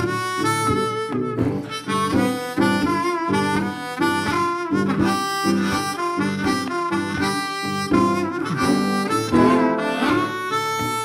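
Background music: a blues-style harmonica tune with guitar accompaniment.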